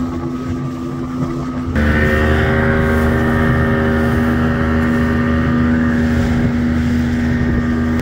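Boat motor running steadily at speed while crossing the lake. A little under two seconds in, the sound changes abruptly and becomes louder and steadier.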